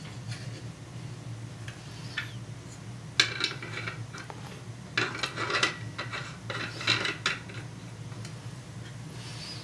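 Monsoon rotary fittings being screwed by hand onto a radiator's threaded port extenders: light metallic clinks, rattling and scraping that come in a few short clusters, over a steady low hum.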